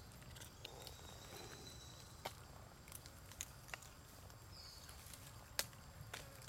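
Quiet outdoor ambience with a faint low rumble, broken by a few small sharp clicks, the loudest about five and a half seconds in. A faint thin high tone sounds between about one and two seconds in.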